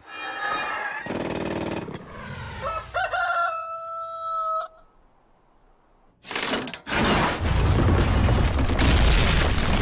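Cartoon sound effects: a rooster crows once in a long held call as night turns to morning. After a brief hush, a loud rumbling noise sets in about six seconds in and carries on.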